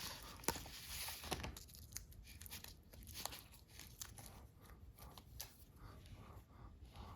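Faint rustling and tearing of screwdriver-bit packaging being opened by hand, with scattered small clicks.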